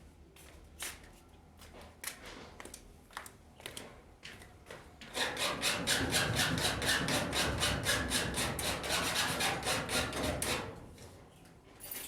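Hand-tool work on the cart: a few scattered scrapes, then from about five seconds in a fast, even run of back-and-forth rubbing strokes, about seven a second, that stops shortly before the end.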